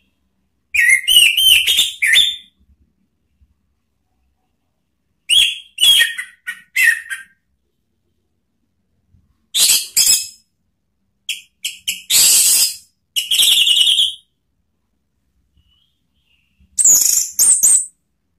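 Orange-headed thrush (anis merah) singing: five loud phrases of quick, high, varied notes, each one to three seconds long, with pauses of a few seconds between them.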